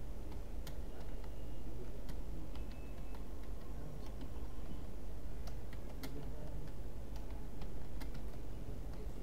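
Computer keyboard typing: irregular keystroke clicks, several a second in short runs, over a steady low background hum.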